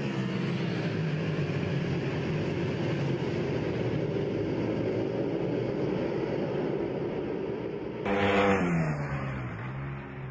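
Ducati superbikes racing past at high revs, their engines a steady drone. About eight seconds in one goes by close, suddenly louder, and its note drops in pitch as it passes and fades away.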